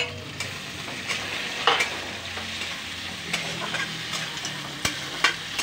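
Chopped green chillies and capsicum sizzling in hot oil in a metal kadhai, stirred with a metal spatula that scrapes and clicks against the pan a few times.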